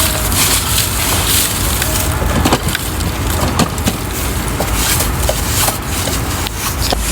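Toy truck rattling and scraping as it is played with, with scattered sharp clicks over a steady rough noise.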